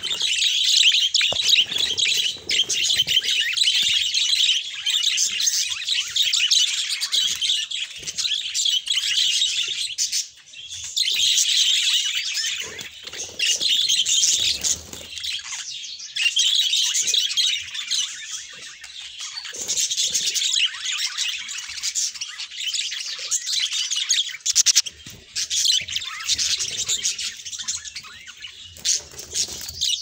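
A flock of budgerigars chattering together: a dense, continuous twitter of many overlapping chirps, with a short lull about a third of the way in.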